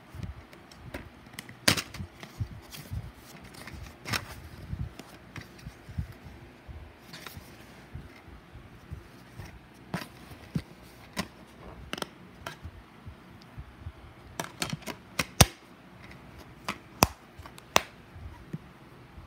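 Irregular sharp clicks and taps of a plastic DVD case being handled, with the loudest click a little past halfway and a quick run of clicks just before it.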